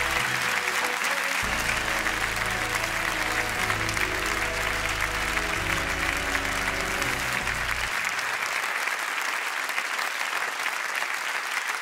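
Audience applauding, with music playing under it that stops about eight seconds in while the clapping goes on.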